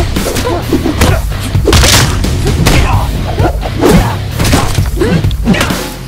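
Fight-scene soundtrack: loud music with heavy bass, cut through by a string of punch, thud and swish hits.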